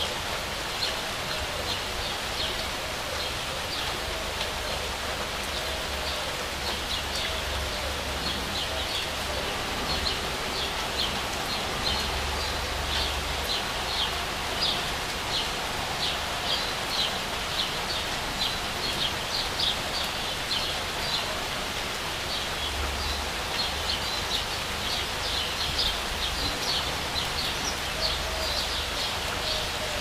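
Steady rain falling, with a small bird chirping over it in quick, short, high notes, several a second, throughout.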